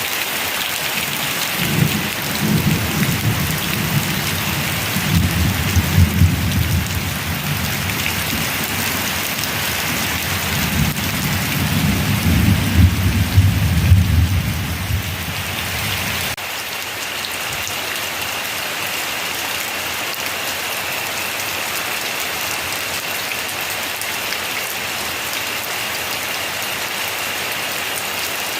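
Heavy rain falling steadily, with two long rolls of thunder rumbling through it. The second roll cuts off abruptly about sixteen seconds in, and the rain carries on alone after that.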